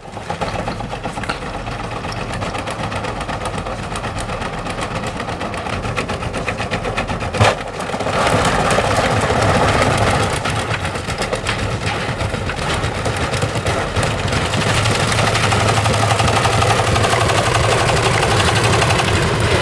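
Washing machine running with bricks and junk tumbling in its drum: a dense, rapid clatter of hard objects banging around over the motor's hum. A loud bang comes about seven and a half seconds in, and the racket gets louder from about eight seconds in.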